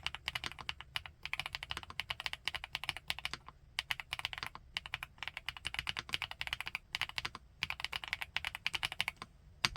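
Typing on an FL-ESPORTS Geo75 gasket-mount mechanical keyboard with Kailh x Funkeys BCP (Black Cherry Pie) linear switches. The keystrokes come in quick runs of a second or so, each followed by a brief pause.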